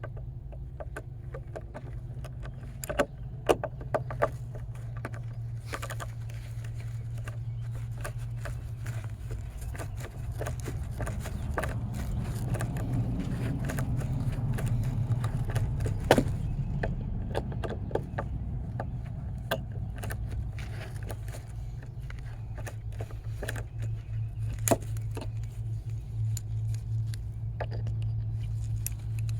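Small ratcheting screwdriver driving screws: irregular clicking and scraping of the ratchet and the bit, with a few louder knocks, over a steady low hum.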